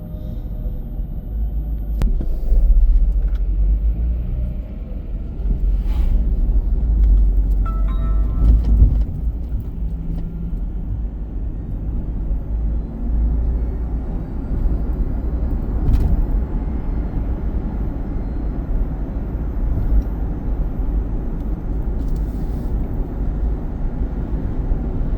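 Car driving in city traffic, heard from inside the cabin: a steady low rumble of road and engine noise. A few brief clicks and a short tonal sound come about eight seconds in.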